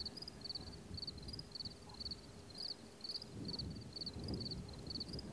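A cricket chirping steadily, about three short pulsed chirps a second, over a low rumble that swells about three and a half seconds in.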